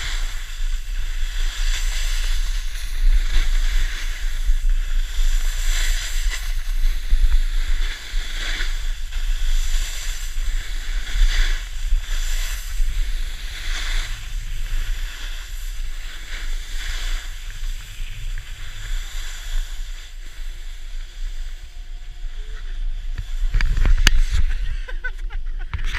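Wind buffeting the action camera's microphone with a steady deep rumble, over the hiss of edges scraping the snow that swells with each carved turn, every second or two. Near the end come a few clicks and knocks as the rider comes to a stop.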